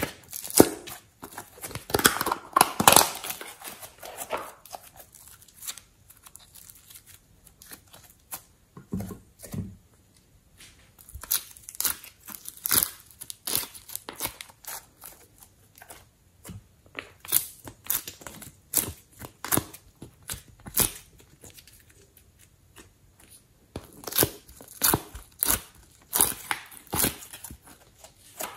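Hands squeezing, pressing and pulling soft slime and clay, making irregular sticky crackles and clicks in clusters, loudest in the first few seconds.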